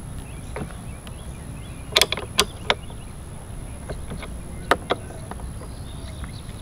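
Ratchet wrench clicking as it turns a scooter mirror's mounting nut: a few sharp clicks about two seconds in and two more near five seconds.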